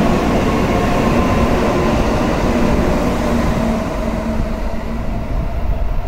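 Shinkansen train running slowly, with a steady rumble and a few held motor tones. The sound eases off about four seconds in.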